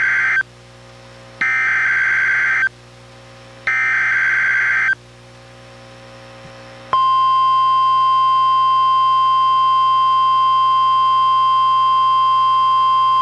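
NOAA Weather Radio SAME (Specific Area Message Encoding) header: buzzy data bursts about a second long with a second's gap between them, heard as the end of one burst and then two more. About seven seconds in, the steady 1050 Hz warning alert tone begins. Together they announce a special marine warning.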